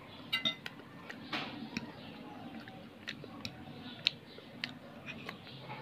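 A metal spoon clicking and scraping on a ceramic plate while food is cut and eaten: about ten light, irregular clicks, one near the start ringing briefly like a clink.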